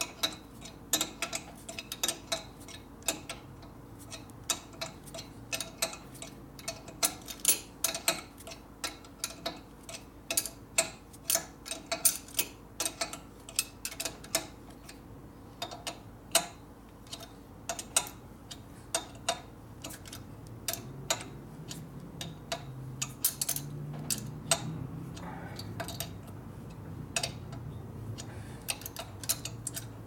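Hand wrench clicking against metal as a prevailing-torque lock nut is run down on the engine's top motor mount bracket: many short, sharp, irregular ticks, a few a second. The nut locks all the way, so it has to be wrenched the whole way down.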